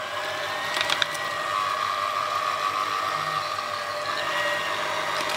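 Electric hand mixer running steadily, its motor whining as it labours through a thick, heavy fruitcake batter. A couple of clicks come about a second in.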